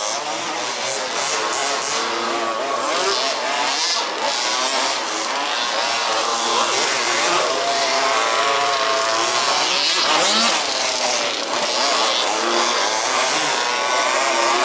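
Several 1/5th-scale RC buggies racing, their small two-stroke petrol engines revving up and down as they accelerate and back off, with the pitch of overlapping engines weaving throughout.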